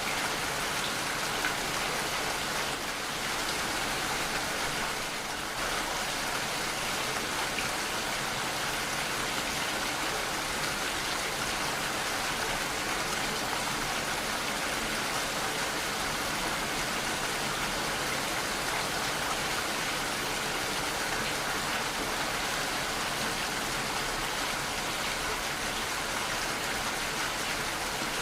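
Steady heavy rainfall, a dense even hiss of raindrops.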